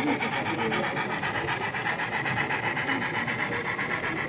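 Model freight train running past on the layout's track, its wagons' wheels making a rapid, even clicking clatter.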